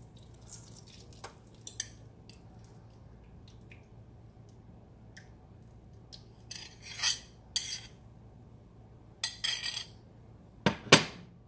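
Scattered clinks and taps of a bowl and utensil against a nonstick skillet as beaten eggs are poured in and worked, with a louder knock near the end.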